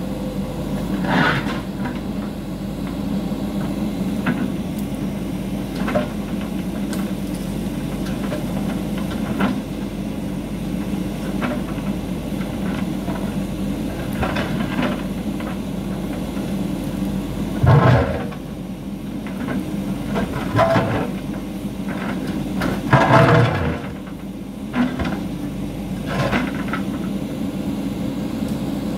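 JCB 3DX backhoe loader's diesel engine running steadily while the backhoe digs into earth and rock. Several louder moments of bucket scraping and knocking come through, the strongest about 18 and 23 seconds in.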